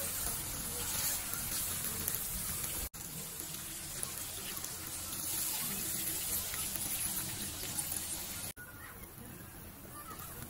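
Chili paste sizzling in a hot wok while stingray pieces are stirred through it. After an abrupt cut, tamarind water is poured in from a bowl with a steady rush of liquid. After a second abrupt cut, near the end, it settles to a quieter simmer.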